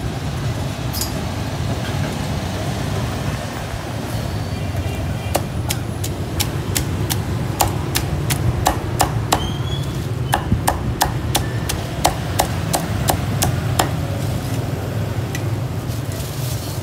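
A meat cleaver chopping crisp-skinned Vietnamese roast pork (heo quay) in quick, even strokes, about three a second. The strokes start about five seconds in and stop about fourteen seconds in, over a steady low rumble of street traffic.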